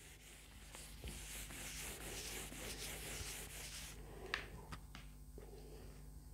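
Whiteboard eraser rubbing back and forth across a whiteboard, a faint scrubbing hiss for about three seconds, then a light click.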